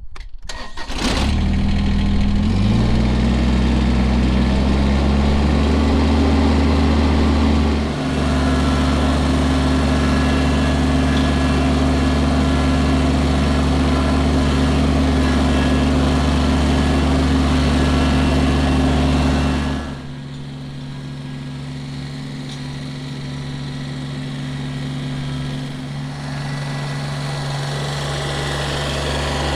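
A Kubota compact tractor's three-cylinder diesel engine is started on the key. It cranks briefly about a second in, catches, and rises over the next two seconds to a steady run. It then keeps running steadily as the tractor drives, sounding quieter about two-thirds of the way through.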